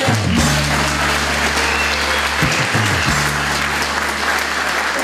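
Audience applauding over background music that holds steady low bass notes.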